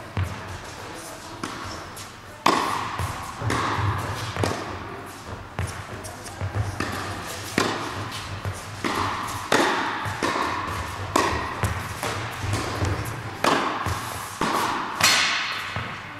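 Tennis ball struck back and forth by rackets in a rally, about one hit a second, each hit echoing through a large indoor tennis hall.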